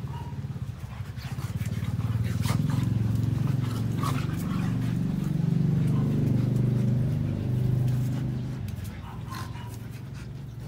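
A Belgian Malinois and a German Shepherd growling at each other in rough play, a low rumbling growl that swells about two seconds in and fades near the end. Scattered scuffling clicks run under it.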